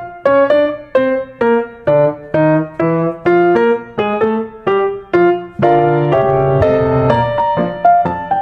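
Intro music played on a piano-like keyboard: a melody of struck notes, a little over two a second, each decaying before the next.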